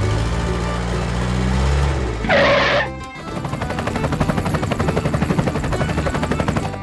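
Background music with a steady beat, and a short noisy burst about two and a half seconds in.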